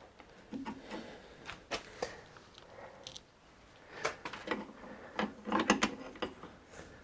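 Scattered metal clicks and knocks of parts and tools being handled at a milling-machine vise as a bushing is clamped and driven into the worn hole of a truck clutch arm, with a quick run of clatter about four to six seconds in.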